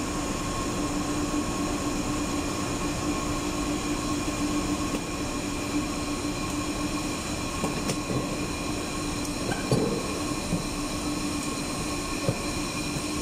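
Steady drone of boiler-room machinery: a constant hum with several high steady whining tones over a noisy wash. A couple of faint knocks come through near the middle and near the end.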